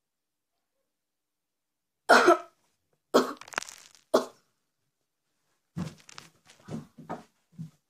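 A girl coughing hard on a mouthful of ground cinnamon: three loud coughs starting about two seconds in, roughly a second apart, then a string of smaller coughs and splutters.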